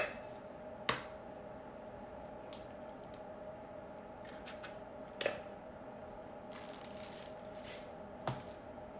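Eggs tapped and cracked on the rim of a stainless steel mixing bowl: a few sharp knocks, the loudest right at the start, others about a second in, around five seconds in and near the end, with faint shell crackles between. A steady faint hum runs underneath.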